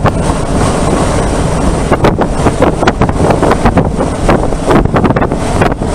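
Road and wind noise inside a moving vehicle: a loud, steady rumble with uneven wind buffeting on the microphone.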